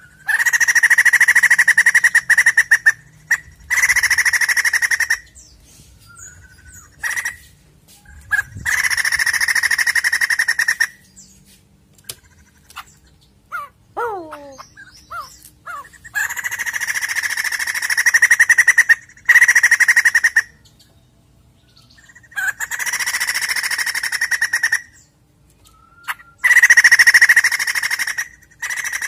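White-crested laughingthrush giving loud, rapid, buzzy chattering calls in bursts of one to three seconds, about eight bursts with short pauses between them. A few short falling whistled notes come in a gap about halfway through.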